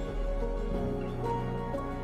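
Soft background music with sustained, gently changing notes.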